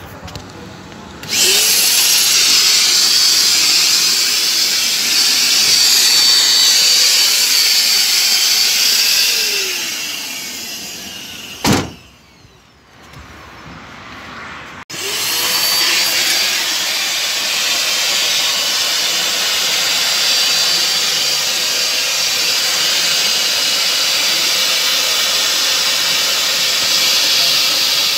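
Handheld electric disinfection fogger running: its motor whines up to speed with a loud hiss of spray about a second in, winds down and stops with a click near the middle, then starts up again and runs steadily.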